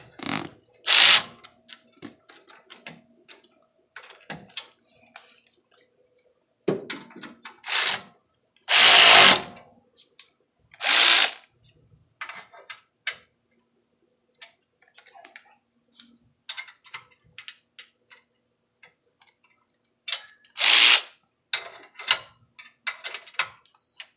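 Several short bursts of a power tool, the longest about a second, among scattered clicks and clanks of tools and metal parts.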